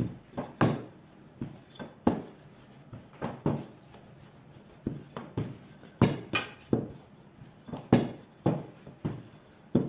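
Wooden rolling pin rolling out pastry dough on a stainless steel worktop, with irregular sharp knocks and clicks, a few a second, as the pin and hands hit the metal.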